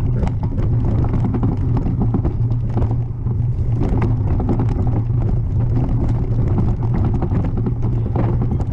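Mountain bike descending a rocky dirt singletrack at speed: a steady low rumble of wind and rolling tyres, with constant small knocks and clatter from the bike over stones.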